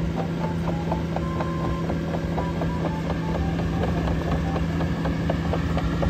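Cat AP655F tracked asphalt paver running: a steady diesel engine hum with low rumble as the machine crawls along, and irregular short squeaks and clicks from its moving parts.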